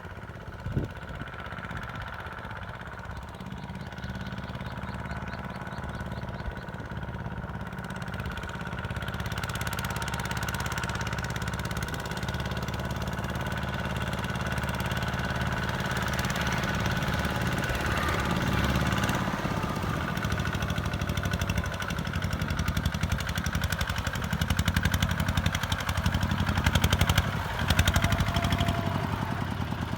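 Single-cylinder diesel engine of a Kubota ZT-150 two-wheel tractor running steadily, growing gradually louder.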